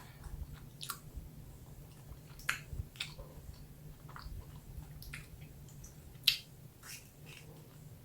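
Close-miked chewing of a soggy ice cream cone with vegetarian ham: irregular wet mouth clicks and smacks, one sharp loud one about six seconds in, over a faint steady low hum.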